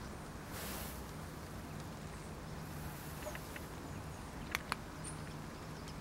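Two sharp clicks close together, the tail-cap push switch of a Led Lenser P7.2 flashlight being pressed to switch the lamp on, over steady outdoor background noise. A brief rustle comes under a second in.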